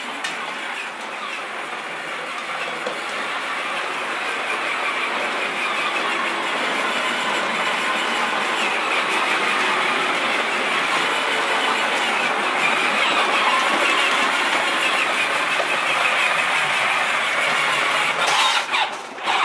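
Peg Perego John Deere Ground Force 12-volt ride-on toy tractor driving across a concrete floor towing its trailer: a steady rattling rumble from its electric drive and hard plastic wheels, getting steadily louder.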